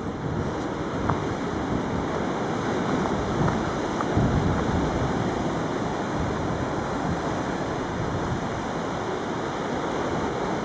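Steady rush of ocean surf with wind on the microphone.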